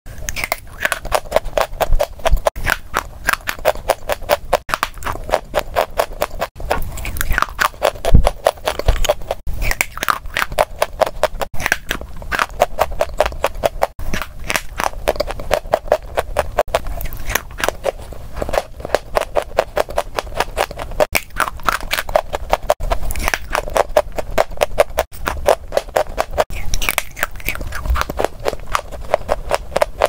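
Close-miked biting and chewing of dry coloured stationery chalk: a rapid, regular run of sharp crunches.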